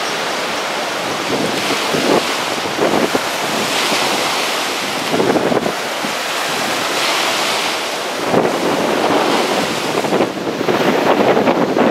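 High storm wind buffeting the microphone in repeated gusts, over the steady wash of surf.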